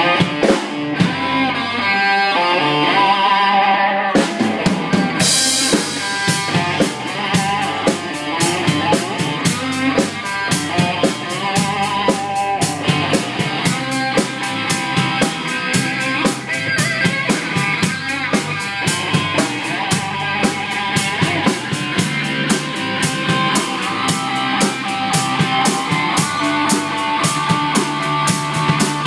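Electric guitar playing instrumental rock lead lines live. It plays alone at first, then a drum kit comes in about four seconds in with a steady cymbal beat.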